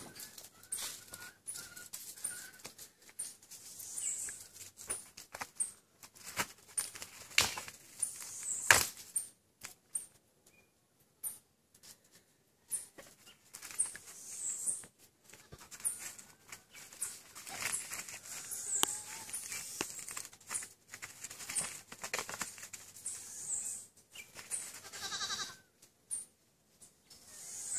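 Goats scuffling and shoving on ground strewn with dry leaves and debris: irregular rustling and scattered sharp knocks, the two loudest knocks a little over a second apart about eight seconds in.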